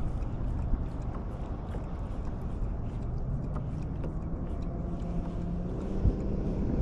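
Wind rumbling on the microphone over water lapping around a kayak, with a faint low hum coming in about halfway through and a single knock about six seconds in.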